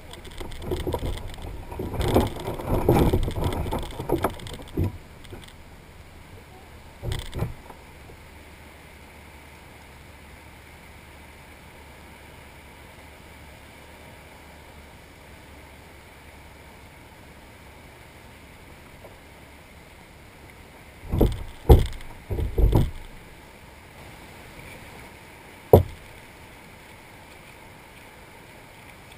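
Scuffing and bumping on the hull of a plastic sit-on-top fishing kayak as a frightened dog is coaxed off its seat, loud and irregular for a few seconds. Then a steady low wash of surf, broken later by three heavy thumps close together and one sharp knock.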